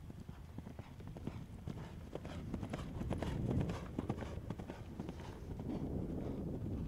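Hoofbeats of a horse galloping on grass turf, a fast run of dull thuds that grows loudest about halfway through as the horse passes close.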